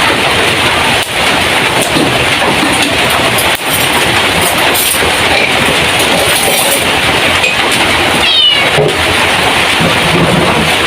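A steady, loud hiss with no rhythm, like heavy rain or frying, with a brief high rising cry about eight and a half seconds in.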